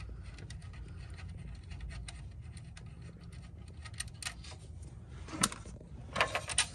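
Rapid, fine clicking of a ratchet wrench backing out the 10 mm nut on the alternator's power-cable terminal, with a few sharper clicks and knocks near the end.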